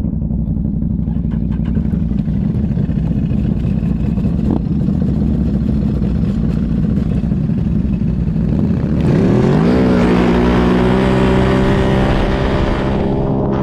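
Tracked ATV's engine running at low revs, then revving up about nine seconds in and holding high as the machine accelerates through deep snow. A rushing hiss of snow spray and track noise joins the engine once it revs up.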